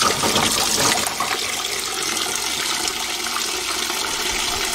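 Kitchen tap running steadily into a glass bowl of blanched perilla leaves in a stainless steel sink, the water splashing over the greens as they are rinsed.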